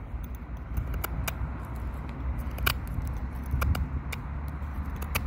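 Sanrenmu fixed-blade knife cutting into a wooden stick: a scattered series of short, sharp clicks as the blade bites and shaves the wood, over a steady low background rumble.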